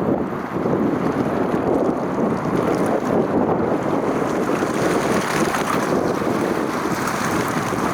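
Wind buffeting the microphone, a steady rushing noise that rises and falls a little.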